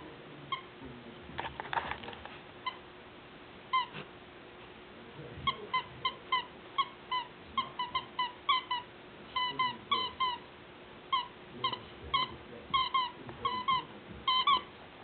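Squeaker inside a plush dog toy squeaking again and again as a puppy chews it: short high squeaks, sparse at first, then coming about twice a second, often in quick pairs, from about five seconds in. A brief rustle near the start.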